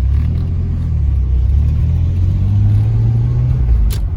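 Nissan 300ZX V6 engine heard from inside the cabin, pulling through a gear; its low note rises a little and then drops just before a short click near the end. No knock is heard, its knocking catalytic converter having just been replaced.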